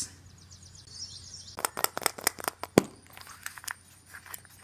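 Plastic toy surprise eggs being handled and opened: a quick run of sharp clicks and taps, the loudest near the three-second mark, with a few more after.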